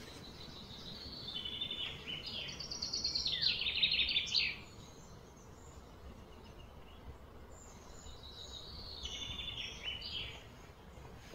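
A bird singing: a long run of rapid high notes in the first few seconds, which is the loudest sound, and a second shorter run about nine seconds in, over faint low background noise.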